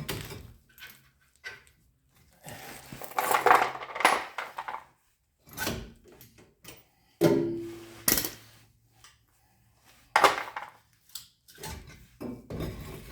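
Hand tools and metal brake parts clinking and clattering in several separate bursts, one of them with a short metallic ring.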